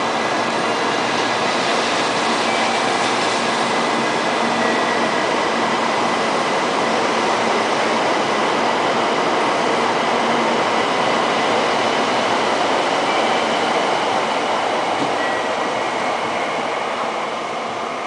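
700 series Shinkansen train pulling out and gathering speed, the running noise of its cars rushing steadily past the platform. The sound fades near the end as the last car clears.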